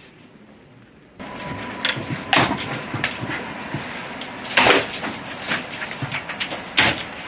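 Clear plastic stretch film wrapped around stacked boards being slit with a knife and handled, crinkling and crackling, with three loud sharp crackles.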